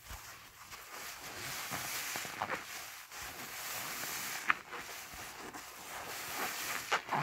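A soapy HDX sponge squeezed by hand in thick suds: wet squishing and fizzing, crackling foam, with three sharper squelches as the sponge is pressed.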